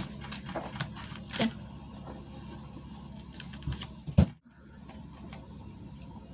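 Handling of an eyeshadow palette and makeup brushes: scattered light clicks and taps over a low hum, with one sharper knock about four seconds in, after which the sound briefly drops out.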